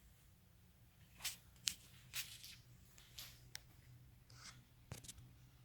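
A few light clicks and rustles, about eight in four seconds, over a faint low hum.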